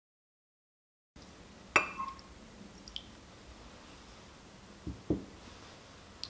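Dead silence for about the first second. Then kitchen handling sounds from separating an egg yolk into a small glass bowl and mixing in milk: one sharp, ringing clink of glass, a few faint ticks, and two soft low thuds near the end, as the small ceramic milk jug is set down on the cloth-covered table.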